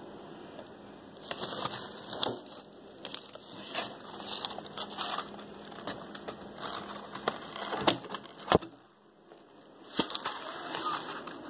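Rustling and crinkling at a plastic kitchen trash can, with scattered clicks and two sharp knocks a little past the middle, then a brief lull.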